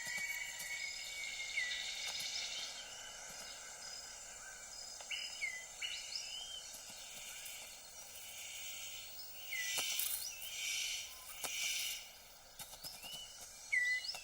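Rainforest ambience: a steady high insect hum under repeated short whistled bird calls that sweep up and then drop. A few loud rustling bursts come about ten seconds in.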